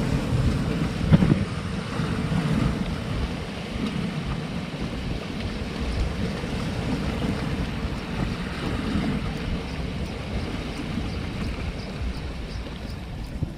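Sea waves washing and breaking over shoreline rocks, with wind buffeting the microphone in gusty low rumbles.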